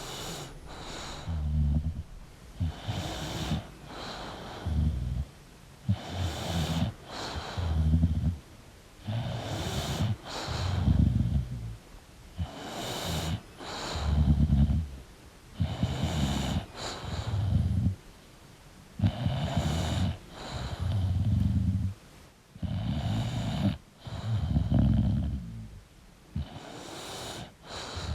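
English bulldog snoring in its sleep: a steady rhythm of about one breath every three and a half seconds, with a snore on the breath in and another on the breath out.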